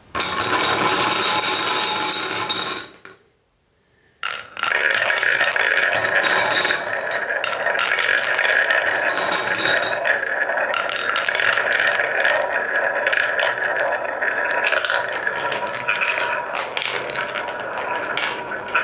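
Wooden balls rolling round a wooden marble-run bowl and along wooden track: a steady rolling rumble with frequent sharp clicks as the balls knock against each other and the wood. It stops for about a second a few seconds in, then starts again.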